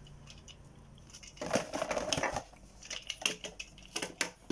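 A plastic toy launcher and its cardboard and paper packaging being handled on a wooden table. There is a crinkling rustle of about a second, then several light clicks and knocks as the pieces are set down.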